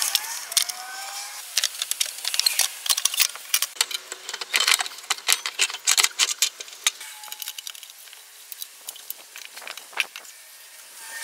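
Metal parts and tools clinking and rattling in quick, irregular clicks and knocks, with a few short ringing notes; dense for the first seven seconds or so, then sparser.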